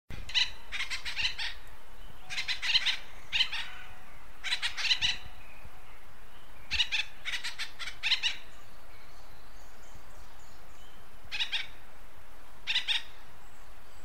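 Acorn woodpecker calling in about eight short bursts of rapidly repeated notes, separated by pauses, over a steady background hiss.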